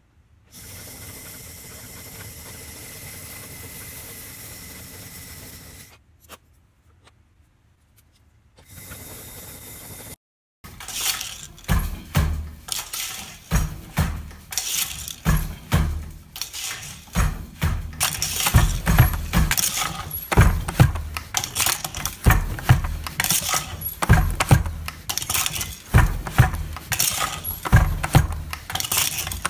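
Wooden takabata hand loom being worked: a dense run of repeated wooden knocks and clatter from the beater and shuttle, starting after a steady low hiss that fills the first third.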